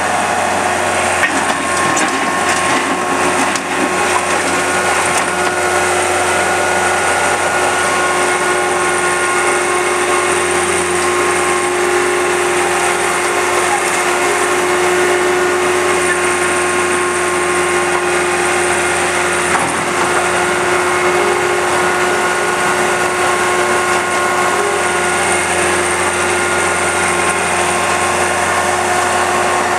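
Caterpillar 226 skid steer's diesel engine running steadily under the operator's control, with a steady mechanical whine over the engine note.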